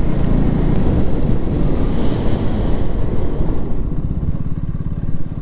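KTM Duke 200's single-cylinder engine running steadily as the motorcycle rides along, with wind rushing over the microphone.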